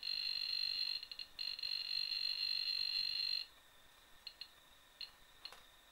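The piezoelectric speaker of a homemade Matchless induction-balance metal detector sounds a steady high-pitched alarm-like tone, signalling a metal target held about 29 cm from the coils. The tone breaks briefly once or twice, then stops a little after three seconds in, leaving only a few faint short chirps.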